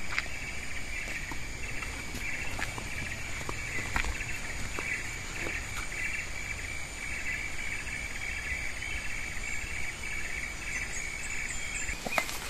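Insects chirring steadily in a high, finely pulsing chorus, with a few faint clicks.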